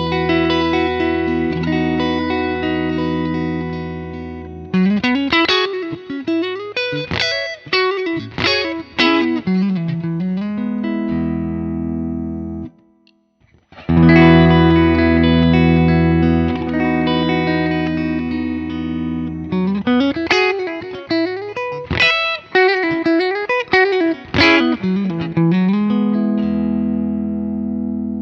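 FGN J-Standard Iliad JIL2ASHM electric guitar played through an amp: a held, ringing chord, then a lead phrase of quick single notes with string bends, ending on a sustained chord. After a brief pause the same passage is played a second time.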